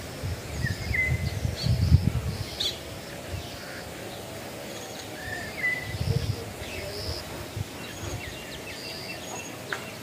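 Birds chirping and calling in short, scattered notes, with low rumbling gusts in the first two seconds and again about six seconds in.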